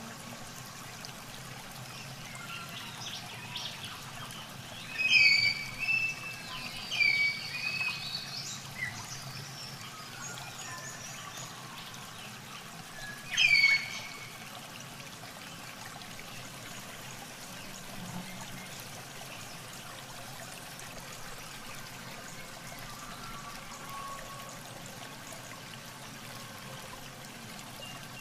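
Shallow muddy water sloshing and trickling as hands grope through it for fish. Short, loud, high-pitched bird calls sound several times a few seconds in and once more about halfway through.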